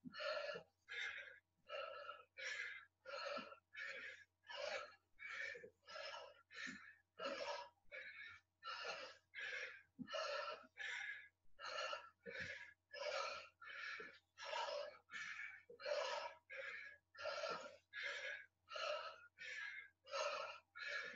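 Faint, heavy, rhythmic panting from a man exercising hard: short, sharp breaths about one and a half a second, the breathing of someone out of breath mid-workout.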